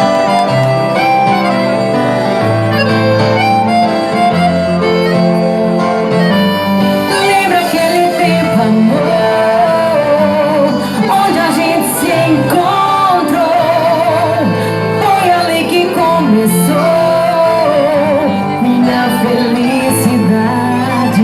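Loud festa junina quadrilha music: a melody line over a steady, stepping bass.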